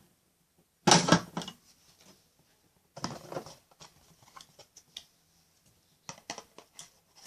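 Irregular clicks and rattles of small toys being handled around a toy washing machine, with a louder clatter about a second in and another around three seconds.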